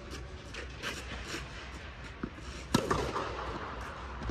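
Tennis balls struck by rackets in a rally: a sharp hit about two-thirds through, another at the end, and fainter hits or bounces in between, each ringing out in a large echoing dome hall.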